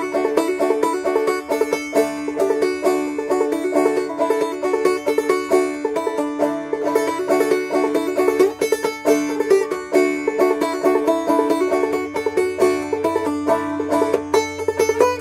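Solo banjo played clawhammer style, picking out a Christmas carol melody with brisk plucked and brushed notes over a steady droning string, in D from C tuning capoed up.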